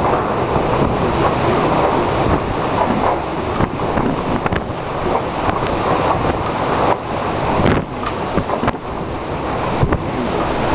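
Typhoon wind blowing hard and gusting, buffeting the microphone with frequent sharp crackles.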